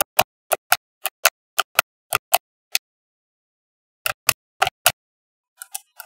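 Small magnetic balls clicking sharply into place, often in quick pairs. There is a run of clicks, a pause of over a second, four more clicks, then a brief rattle of balls near the end.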